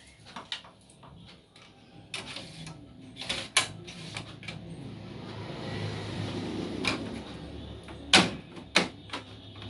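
Plastic clicks and knocks of parts being fitted back inside a Kyocera TASKalfa photocopier as a clip is snapped into place, a few scattered through and the two loudest close together near the end, over a faint low steady hum.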